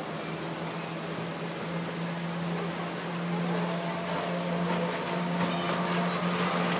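Small speedboat's engine running steadily with a steady hum, growing louder as the boat approaches.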